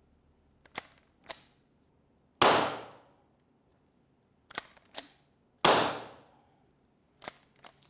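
Two suppressed shots from a 3D-printed Glock-style pistol, about three seconds apart, each a sharp crack that rings out briefly. Before each shot and after the last comes a pair of quick metallic clicks: the slide being racked by hand, because with the suppressor on the slide does not cycle by itself.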